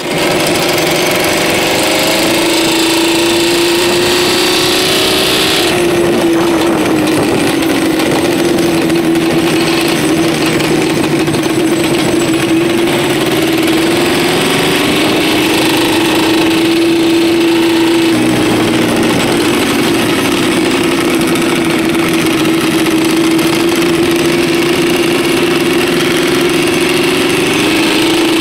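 Quad bike (ATV) engine running at a steady speed while riding on a sandy track, its pitch slowly dipping and rising a couple of times with the throttle.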